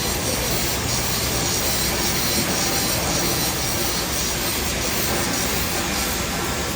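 Steady hiss and hum of argon TIG welding on a steel pipe-to-flange joint, running evenly without a break.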